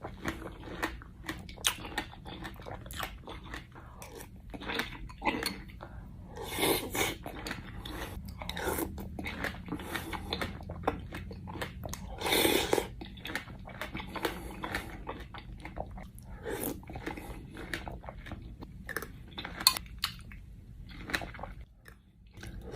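A person chewing and crunching a mouthful of berries and pomegranate seeds in coconut water, in irregular wet crunches with a few louder bites.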